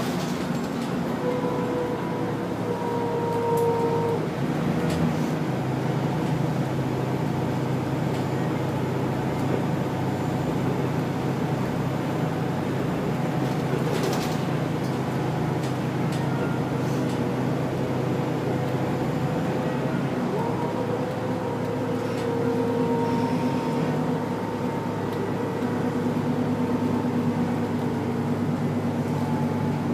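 Bus interior noise: the engine and the road rumbling steadily, with a whine that comes in for a few seconds near the start and again in the second half.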